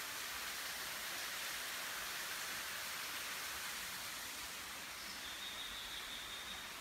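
A thin, straight-falling waterfall splashing down steadily in a constant hiss. A faint high steady tone joins about five seconds in.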